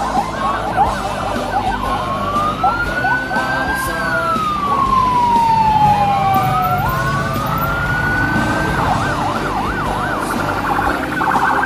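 Electronic siren cycling through its tones: a fast yelp, then slow wails rising and falling, then fast yelping again with a rapid pulsing warble near the end.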